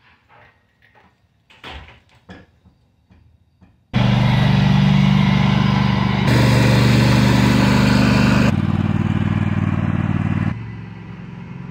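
A John Deere riding lawn tractor's engine running steadily as it is driven, starting suddenly about four seconds in and running in several abruptly cut segments. Before it, a few faint clicks and knocks.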